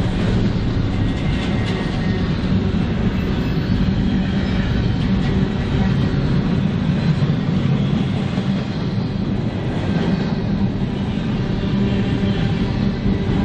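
Train rolling past: a steady rumble of wheels on rail with a low, even diesel engine drone underneath and faint clicking from the wheels over rail joints.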